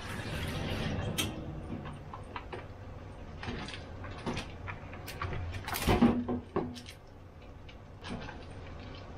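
Kitchen clean-up sounds: plastic packaging and wrappers being handled and set down on a stainless-steel counter beside the sink, a string of light clicks, rustles and knocks, the loudest knock about six seconds in.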